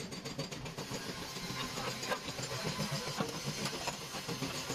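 A motor running steadily with a fast, dense rattle.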